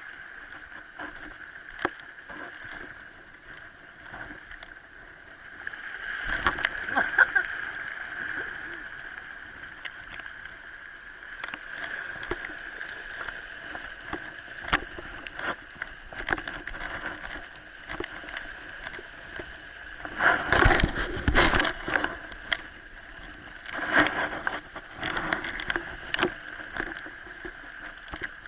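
Water sloshing and gurgling close to the microphone, with many small clicks and ticks. There are louder surges about six seconds in, and again around twenty and twenty-four seconds.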